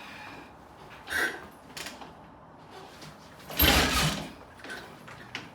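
Triumph T20M single-cylinder engine being kicked over on a cold start without catching: a short clack about a second in, then one heavy kickstart stroke about three and a half seconds in, with no running engine after it.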